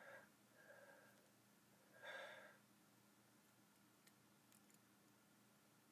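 Near silence: quiet room tone with a few faint short hisses, the clearest about two seconds in.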